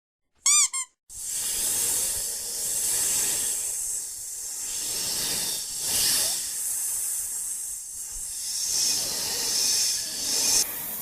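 A brief pitched chirp of a few quick notes, then a long hissing sound effect that swells and fades several times.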